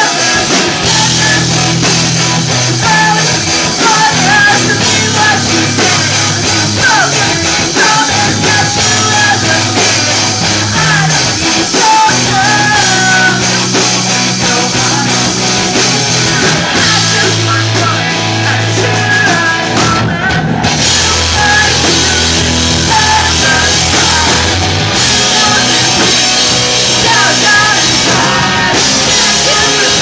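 Rock band playing live: electric guitar, bass and drums, with a woman singing over them. It is loud and dense throughout, recorded from within the audience.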